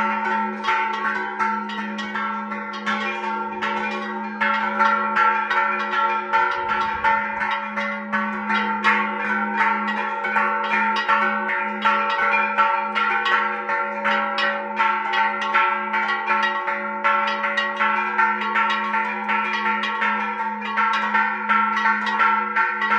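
A repique on several church bells: rope-pulled clappers strike the bells several times a second in a fast, continuous peal over a steady deep ringing tone. One bell is swung over on its wooden yoke.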